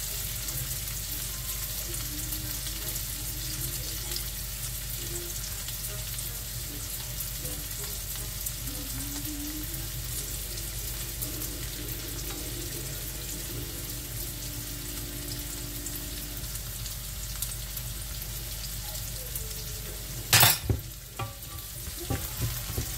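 Sliced onions sizzling steadily in hot oil in a frying pan. About twenty seconds in there is one loud knock, then a wooden spatula clacks and scrapes as it stirs the onions.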